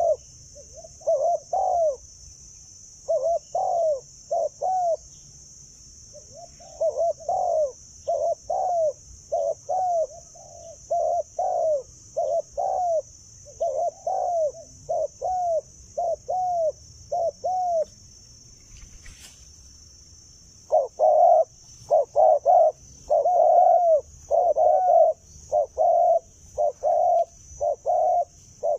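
Spotted dove cooing in short repeated phrases of two or three notes. The calls pause about two-thirds of the way through, then resume louder and more closely spaced.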